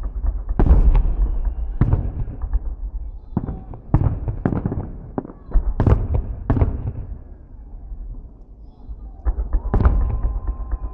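Fireworks salute shells bursting overhead: an irregular string of loud bangs, each trailing off in a low rumble, with a short lull in the second half before more bursts.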